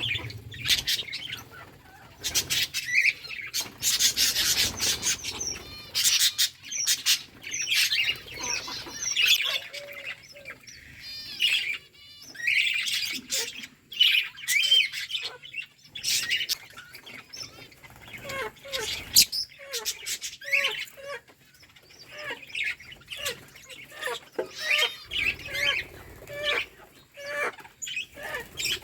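A group of budgerigars chirping and warbling in a continuous chatter, with sharp clicks scattered among the calls.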